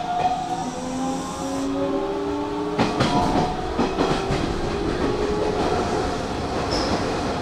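Hanshin Mukogawa Line electric train running past: its traction motors whine in several tones that glide slowly in pitch. From about three seconds in, the wheels clack over rail joints in a quick run of clicks.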